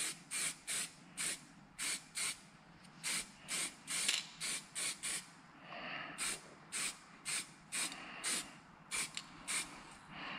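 Aerosol can of grey primer spraying in short hissing bursts, two or three a second, with a brief pause about halfway: a light first coat of primer going onto a brake caliper carrier.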